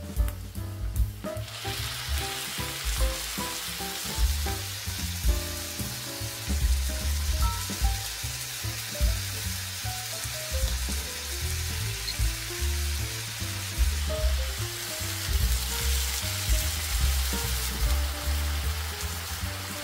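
Vegetables sizzling in a frying pan, the sizzle starting about a second in, with background music playing underneath.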